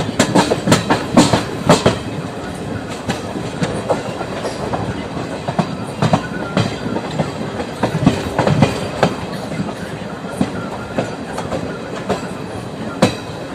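Passenger coach wheels clattering over rail joints and points as the train runs out of the station, with irregular sharp knocks over the steady rumble of the moving train, the knocks coming thickest in the first two seconds.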